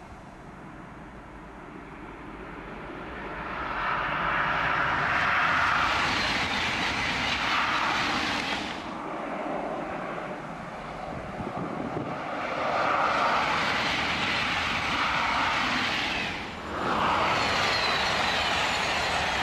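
TGV Duplex high-speed trains passing at speed: a loud rush of wheel and air noise that builds over the first few seconds. It breaks off suddenly twice and picks up again, loud to the end.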